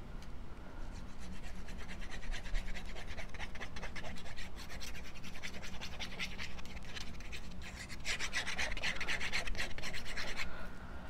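Quick, scratchy rubbing on card stock, many fast strokes in a row, growing loudest for the last few seconds and stopping just before the end.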